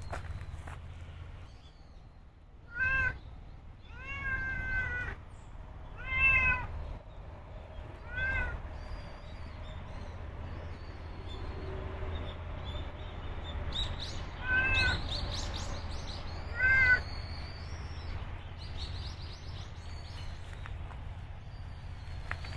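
Domestic cat meowing about six times, each a short call that rises and falls in pitch. The loudest meows come at about six seconds and about seventeen seconds.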